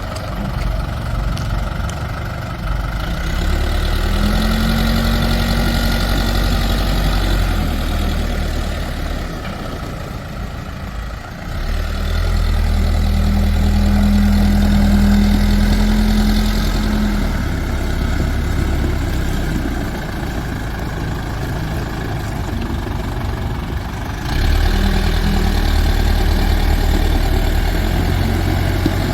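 New Holland LB 95 B backhoe loader's diesel engine running. It swells louder three times, about three seconds in, about twelve seconds in and near the end, each time with a steady whine, and drops back between.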